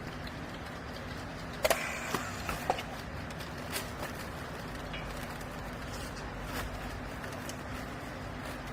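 Hydraulic baler's motor and pump humming steadily, with a few sharp knocks and clicks about two seconds in.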